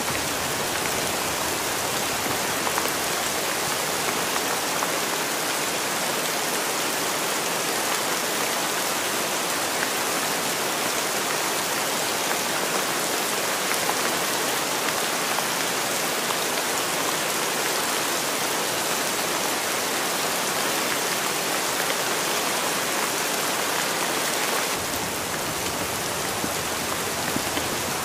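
Steady rain falling, an even, dense hiss of many drops. About 25 seconds in the sound shifts slightly, a little fuller in the low end and a touch quieter.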